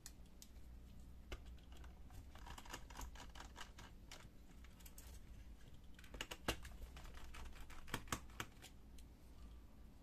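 Small screwdriver turning out the screws that hold a laptop's CPU cooling fan: two runs of quick, light clicks and ticks, with a few sharper clicks in the second half.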